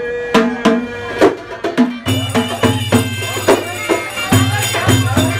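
Live Egyptian folk music: hand-struck frame drums with jingles (riq/tar) beat a steady rhythm under a wavering melody line. A low steady note comes in about two seconds in.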